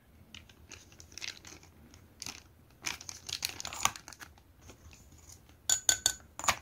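Small plastic bag crinkling and rustling in the hand as 50-micron abrasive grit is shaken out of it onto a granite lapping plate, with a few sharper clicks near the end.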